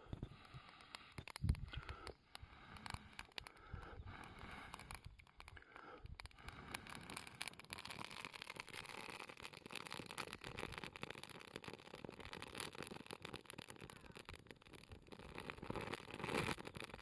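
Natural fire starter burning in a small campfire, crackling with a dense run of fine, irregular pops that thickens after about six seconds. A single low knock about one and a half seconds in.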